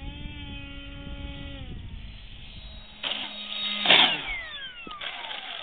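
Electric radio-controlled model jet's motor whining, rising then holding in pitch, then the plane passing low and close with a loud rush about four seconds in, its whine gliding down in pitch as it goes away.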